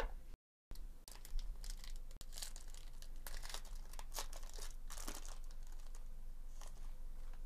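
Foil wrapper of a Topps Chrome baseball card pack being torn open and crinkled by hand: a steady run of dense crackling with many sharp crinkles, starting about a second in.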